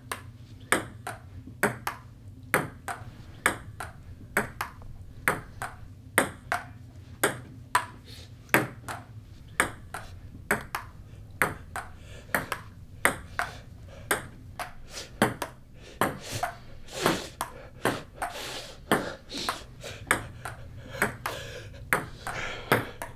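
Table tennis rally: the ball clicking off the paddles and bouncing on the table in a steady back-and-forth rhythm, about two hits a second.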